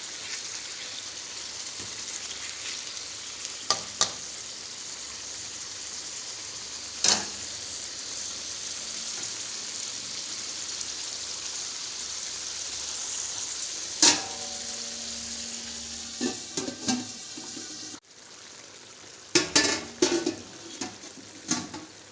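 Chicken sizzling in a pan as it cooks in its own juices with onions and spices, a steady frying hiss. A few sharp metal clinks of utensils against the pan cut through it, one leaving a brief ring. Near the end the hiss drops away suddenly and a quick run of metal clatters follows.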